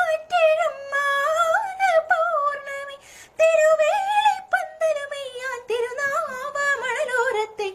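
A woman singing solo and unaccompanied, a winding melody with quick wavering turns in the pitch. She pauses for breath about three seconds in.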